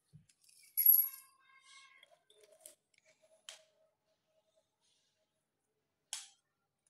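A sharp clink about a second in that rings briefly, followed by a few light clicks, from small hard makeup items being handled and set down on a glass-topped table.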